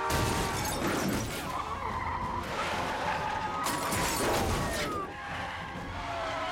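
Car-chase crash sounds: tyres skidding and cars colliding, with glass shattering in several loud impacts, over police sirens wailing.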